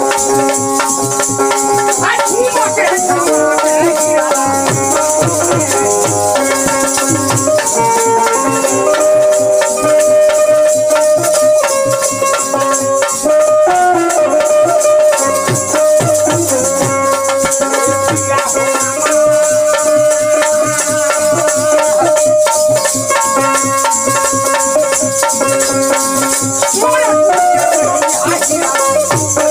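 Instrumental Bhojpuri folk music: hand-shaken kartal clappers jingling in a fast steady rhythm over a dholak drum beat, with a bulbul tarang (Indian banjo) and keyboard playing the melody in held notes.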